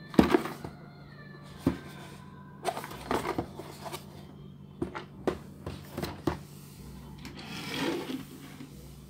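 Cardboard toy box handled and turned in the hands: a string of knocks, taps and rustles, the loudest right at the start. Near the end a small plastic toy fire truck is rolled across a wooden tabletop.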